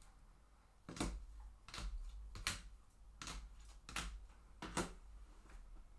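Trading cards being sorted and set down one by one on a table: six sharp clicks, about one every three quarters of a second.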